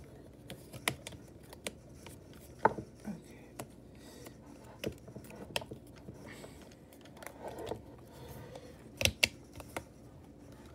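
Hard toy parts clicking and tapping as the capture gear is worked onto a Stegosaurus action figure: scattered light clicks with a few sharper knocks, one about three seconds in and two close together near the end.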